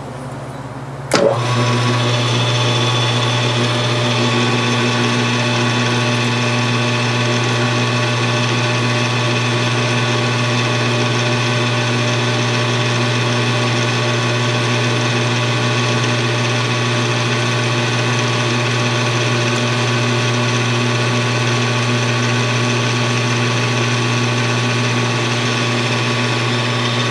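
Small CNC lathe spindle starting with a click about a second in, then running at a steady speed with a strong hum and a stack of motor and drive whines. The tool takes a light pass of one thousandth of an inch off a small turned engine lifter.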